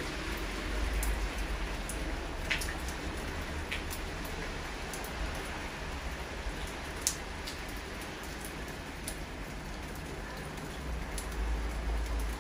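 Steady rain falling, with scattered close drops ticking now and then over the even hiss.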